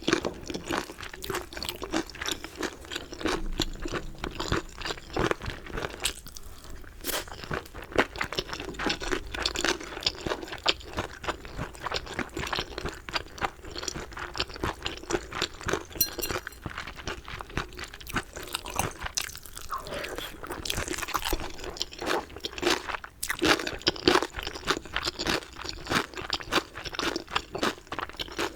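Close-up chewing of crispy fried chicken: many crisp crunches and bites in quick, irregular succession.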